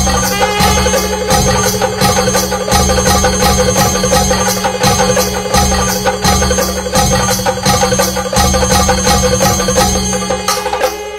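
Traditional Kerala temple festival music, played loud: drums beaten in a steady repeating rhythm with cymbal strokes, over a held reed-pipe melody.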